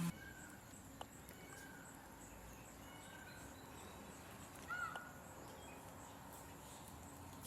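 Quiet rural outdoor background with a few short, high bird chirps, the loudest about five seconds in, over a faint steady high-pitched tone.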